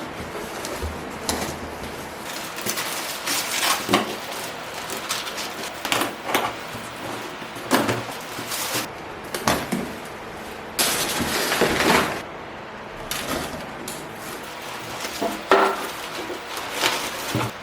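Objects being handled: a run of light knocks and clinks, with a steadier rustling noise lasting about a second near the middle.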